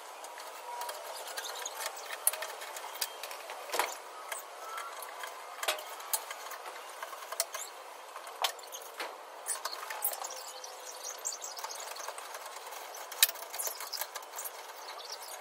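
Socket wrench on a long extension working bolts loose under a car body: irregular metallic clicks and clinks of the tools on steel, with a few sharper knocks, the loudest near the end.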